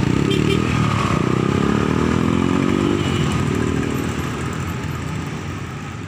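Road traffic pulling away over a level crossing: motorcycle and car engines accelerating, their pitch rising, with the sound gradually fading out over the last couple of seconds.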